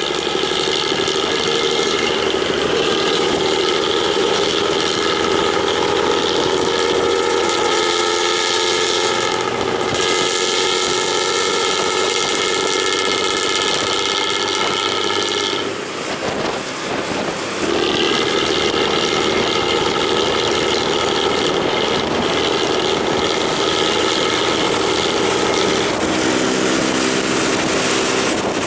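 Pantura intercity bus's diesel engine through a raspy "ngorok" (snoring) straight-through exhaust, running at a steady engine speed with a buzzing, held drone. It breaks off briefly a little past the middle, then carries on at the same pitch.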